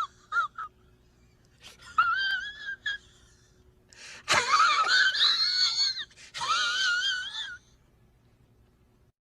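Short meme sound-effect clips: high-pitched, wavering, wheezy squeals in several separate bursts, the loudest and noisiest about four to six seconds in, with quiet gaps between them.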